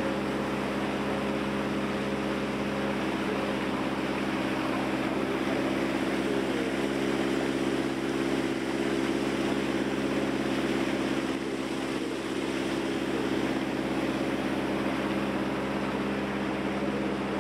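River ferry boat's engine running steadily at cruising speed, a constant drone, over the rush of water and wind as the boat moves along.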